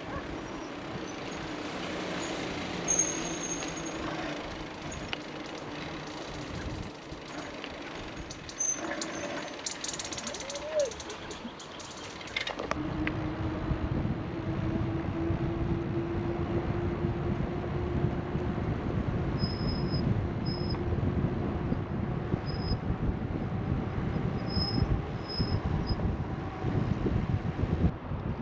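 Outdoor riding noise of rushing wind and passing road traffic. About halfway through, the sound changes abruptly and a steady low hum begins. A few short, high chirps come in the second half.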